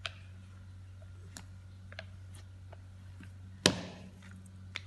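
Faint taps and clicks of a rolling pin and hands working bun dough on a silicone baking mat, with one sharp knock about three-quarters of the way through as the rolling pin is set down. A steady low hum runs underneath.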